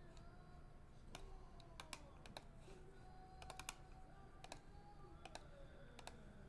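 Faint, irregular clicks of a computer keyboard and mouse, about a dozen scattered through the near silence.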